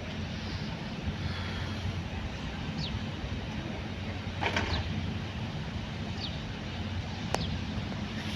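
Open-air farmyard ambience: a steady low machine hum under a noisy haze, with a few short, high, falling bird chirps.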